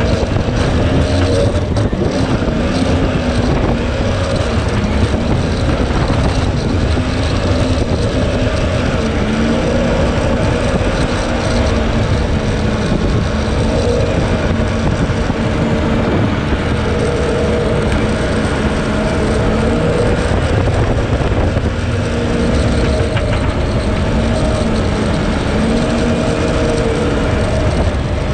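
Jet boat running under power through shallow river riffles: a steady engine drone whose pitch wavers a little up and down as the throttle changes, over the rush of water churning around the hull.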